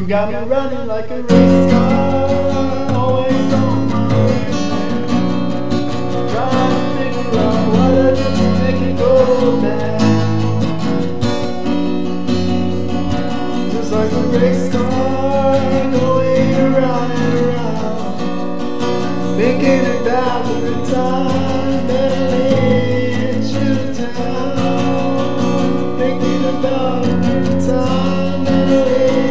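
Music: an instrumental stretch of a song, with strummed guitar under a melodic lead line. A fuller arrangement comes in about a second in.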